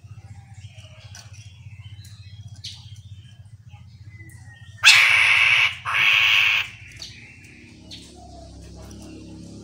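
Chestnut-capped laughingthrush giving scattered soft chirps, then two loud harsh rasping calls in quick succession about five seconds in, over a faint low steady hum.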